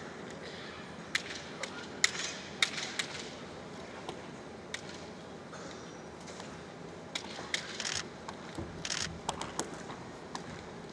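Scattered sharp clacks of bamboo shinai tips knocking and sliding against each other as two kendoka probe in guard, in small clusters a couple of seconds in and again near the end.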